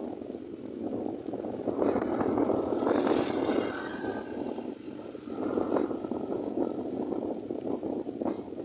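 Wind buffeting the microphone of a moving bike at road speed, a steady fluttering rush. About three seconds in, a brief high whine rises over it as a motorized tricycle is overtaken.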